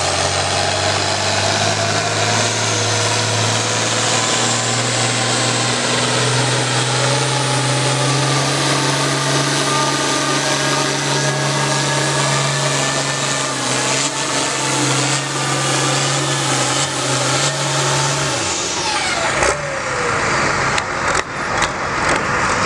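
International Harvester diesel pulling tractor running at full throttle under load as it drags the weight sled, its pitch holding steady and edging up for about eighteen seconds. Then the throttle comes off, the engine note falls away, and a few sharp knocks follow near the end.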